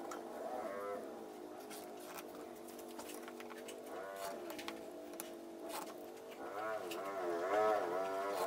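A long, low pitched sound that keeps going and wavers up and down in pitch, rising and falling more strongly near the end, with a few faint ticks.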